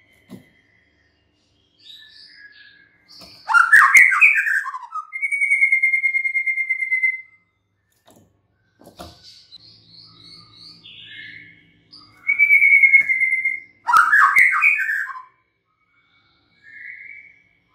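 White-rumped shama singing in phrases: two loud bursts of rapid, rich notes about ten seconds apart, long steady whistles, and quieter runs of quick high notes between, with a few sharp clicks.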